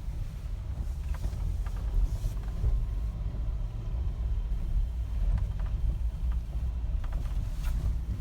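Car cabin noise while driving slowly: a steady low rumble of engine and tyres, with a few faint ticks.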